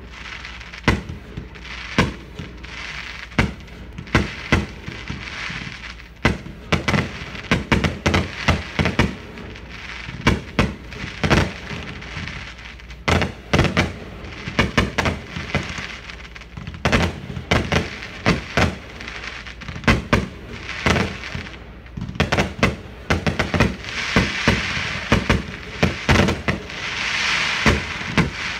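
Aerial fireworks display: a rapid, irregular string of shell bursts and bangs, with a thick crackling from glittering shells near the end.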